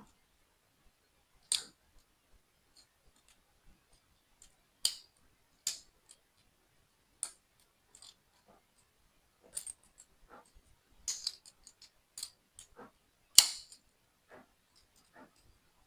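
Small plastic building-brick pieces clicking and tapping as they are handled and pressed together: a dozen or so sharp clicks at irregular intervals, the loudest near the end.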